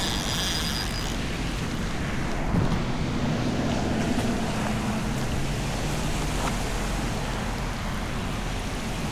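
Steady wind buffeting the microphone during a rainstorm, a low rumbling hiss, with a faint low hum from about two and a half to five seconds in.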